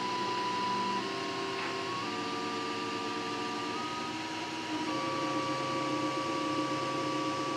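Desktop 3D printer running a print: its stepper motors sing in steady tones that jump to a new pitch every second or so as the print head changes moves, over the steady whir of its cooling fans. The sound gets a little louder about five seconds in.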